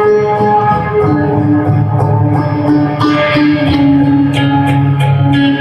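Electric guitar played through an amplifier, sustaining notes and chords. A steady high ticking beat runs behind it and grows busier about three seconds in.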